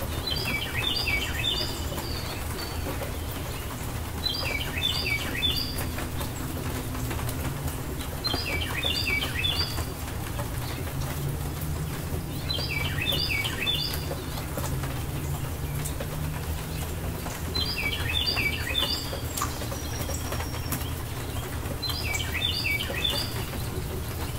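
A songbird repeats the same short phrase six times, roughly every four to five seconds. Each phrase is a quick run of falling notes lasting about a second. Underneath is a steady low rumble and hiss.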